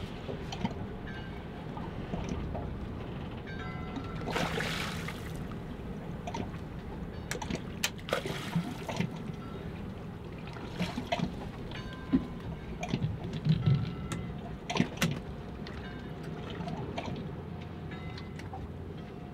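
Water lapping and sloshing against a small boat's hull, with two longer splashing rushes and scattered sharp knocks and clicks, the louder ones in the second half.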